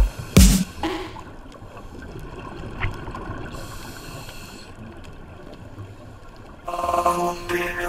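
Muffled, even water noise of the kind a camera picks up underwater, with no speech or beat. Electronic dance music with a heavy beat stops about half a second in and returns near the end.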